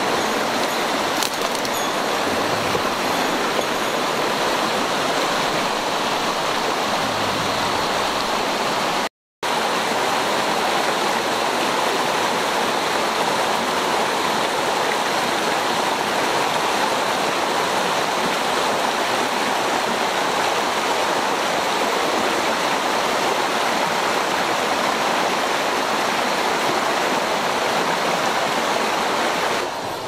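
Mountain stream rushing and splashing over boulders in small cascades, a steady loud wash of white water. The sound cuts out for a moment about nine seconds in.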